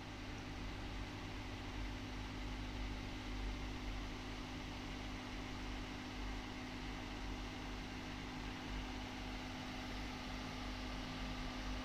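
Steady mechanical hum with a constant low tone over an even background hiss, unchanging throughout.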